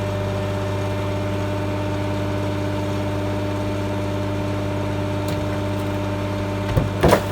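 A vehicle engine idling steadily at a constant pitch, with a few short knocks near the end.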